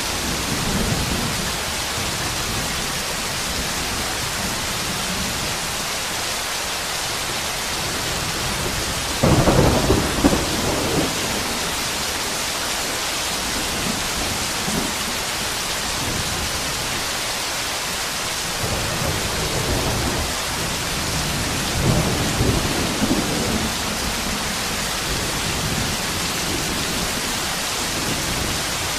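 Heavy rain on a corrugated tin roof and foliage, a steady dense hiss with water pouring off the roof edge. Low rumbles rise over it, the loudest about ten seconds in and weaker ones about twenty seconds in.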